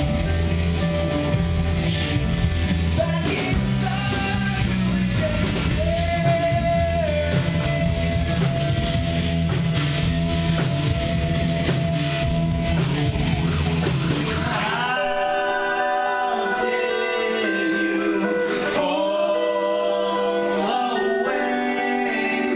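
Live rock band music with singing and guitar. About fifteen seconds in, the bass drops away and only the higher instruments and voice carry on.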